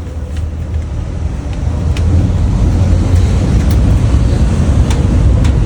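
Loud, steady low rumble that grows louder about two seconds in, with a few faint clicks over it.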